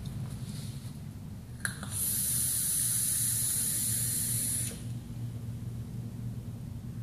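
Rebuildable dripping atomizer (Plume Veil with a wide-bore Chuff Enuff drip top) being fired during a long, hard draw. A short click about a second and a half in, then a steady high hiss of coil sizzle and air rushing through the drip top for about three seconds, which cuts off sharply.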